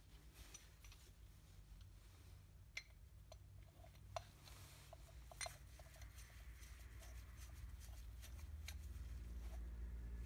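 Faint small metallic clicks and taps as a homemade brake-pad spreader tool's iron plate and threaded rod are fitted against the brake pad on a caliper, three sharper clicks standing out. A low steady hum sits under them and grows louder near the end.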